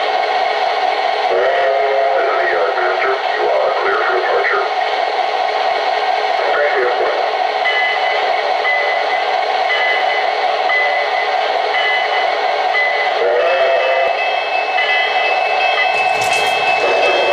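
Lionel O-gauge model trains running on three-rail track, a steady rolling rumble. Brief wavering pitched tones come over it a few times, and from about eight seconds in a short high tone repeats about once a second.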